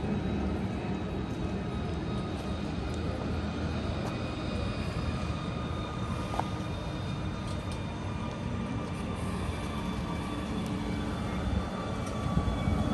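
Steady low engine drone over city street ambience, with faint steady whining tones above it and a few light clicks.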